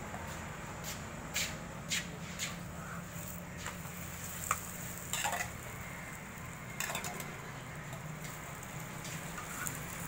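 A metal spatula clinking and knocking against a steel oil cup and a flat iron tawa while a paratha is oiled and flipped, about ten sharp clinks at irregular intervals, the loudest about halfway through. A steady low hum runs underneath.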